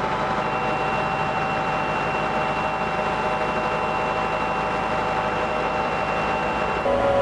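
Tractor-driven vertical-auger feed mixer wagon running steadily, with a constant high whine from the drive that stops near the end as the machine note shifts.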